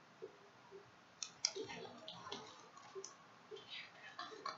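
Faint clicks and rustling of a picture book being handled and lowered, with a few soft ticks early on.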